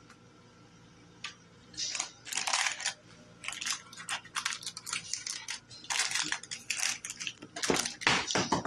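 Parchment paper crinkling and rustling as it is handled, in a run of short, irregular crackles starting about two seconds in, with a louder crumple near the end.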